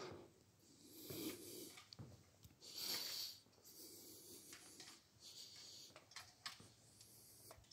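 Near silence, broken by a series of soft, breathy puffs and rustles from the person filming as he walks with the phone.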